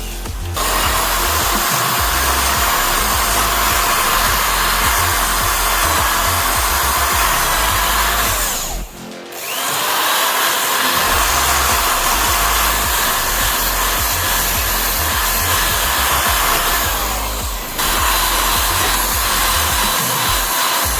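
An electric power tool, such as a grinder or sander, runs steadily with a constant whine. About nine seconds in it stops briefly, then spins back up with a rising pitch.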